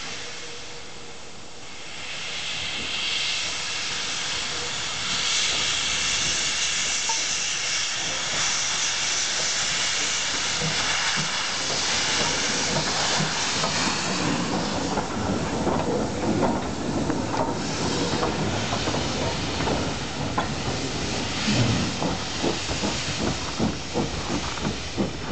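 The 110-year-old steam locomotive KA 692 moves off slowly, its open cylinder drain cocks blowing steam with a loud hiss that builds over the first few seconds. In the second half the hiss drops lower and short knocks and clanks from the running gear and wheels come through, growing more frequent near the end.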